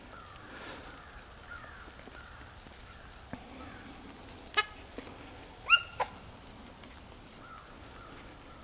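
Beagles barking in the brush, mostly faint, with two or three short, sharper barks about halfway through.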